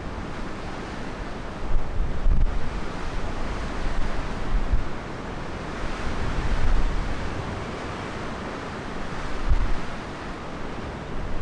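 Storm wind blowing over the microphone: a steady rushing noise broken by low rumbling buffets as gusts strike.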